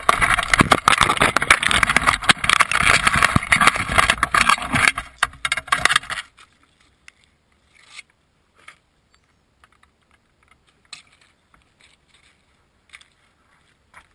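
Loud scraping and rattling of the wire crab trap being handled right against the camera, cutting off abruptly about six seconds in; after that only scattered faint clicks.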